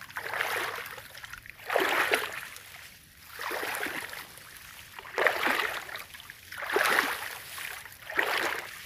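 Footsteps wading through shallow water and wet grass: a swishing splash about every one and a half seconds.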